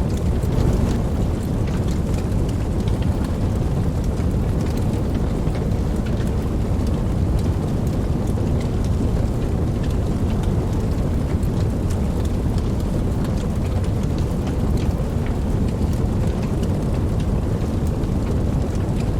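Steady rain: a dense, even hiss weighted toward the low end, with scattered individual drop ticks on top.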